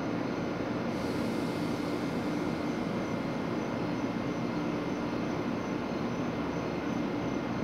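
Steady hum and rumble of an Amtrak passenger train of stainless-steel cars standing at the station platform, with a faint high hiss coming in about a second in and fading near the end.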